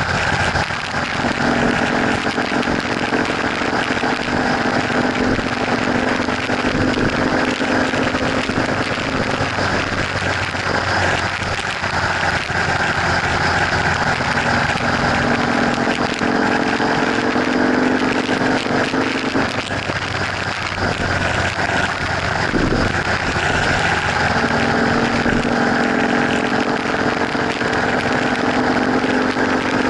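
Motorcycle cruising at freeway speed: a steady rush of wind over the helmet-free action camera's microphone with the bike's engine hum underneath, its tone fading in and out.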